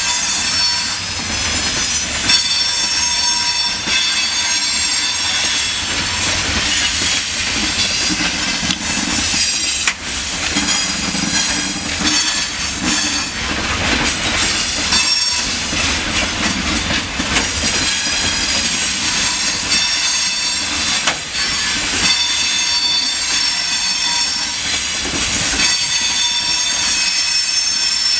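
Freight train of open gondola wagons rolling past behind a VL11 electric locomotive. The wheels squeal in several steady high tones, over a low rumble and clatter as they cross the rail joints.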